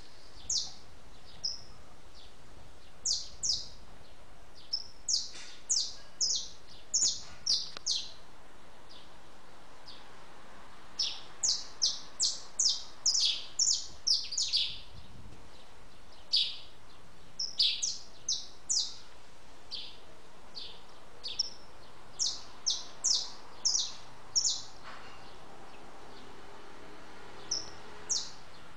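Small birds chirping: short, high, slightly falling notes, some single and some in quick runs of four or five, over a steady faint hiss.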